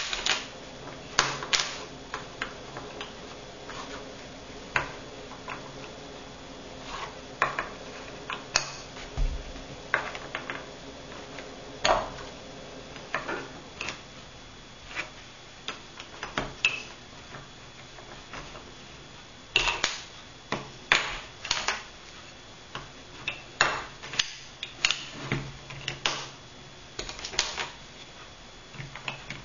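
Wooden burr puzzle pieces clacking and knocking against each other and the tabletop as they are set down and slid into place. The light clacks come at irregular intervals, busiest in the last third.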